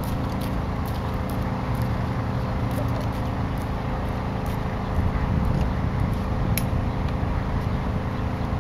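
Steady low rumble of outdoor background noise, with no single clear event standing out.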